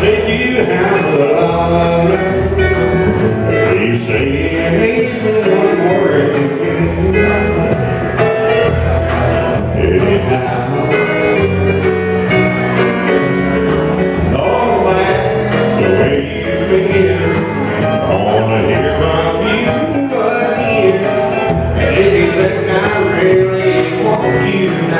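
Live country band playing a song, a man singing lead into a microphone over electric guitar, fiddle and drums, with a steady beat of cymbal strokes.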